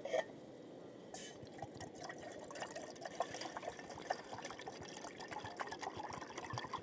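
Water boiling in a pot on a camp stove: faint, irregular bubbling and small pops.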